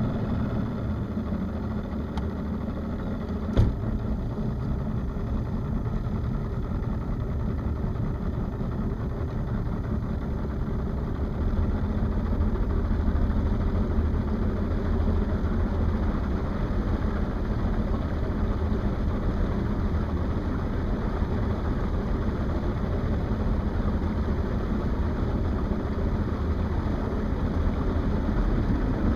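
Motorboat engine running with a steady low rumble, a little louder from about twelve seconds in. A single sharp knock comes a few seconds in.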